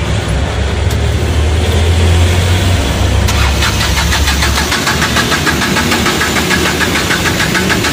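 Starter cranking an Ashok Leyland Dost's diesel engine, which turns over in a rapid, even rhythm but does not catch. This is a no-start, traced to a broken wire at the cam sensor connector.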